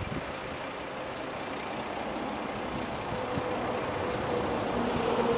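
Sanriku Railway diesel railcar's engine running, growing gradually louder, with a steady hum that comes in about halfway through.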